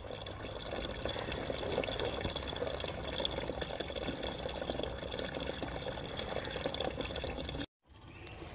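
Water from a garden hose splashing steadily into a plastic bucket as it fills. The sound stops abruptly near the end.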